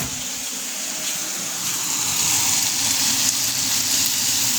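Bacon sizzling in a frying pan: a steady hiss of fat frying that grows a little louder about two seconds in.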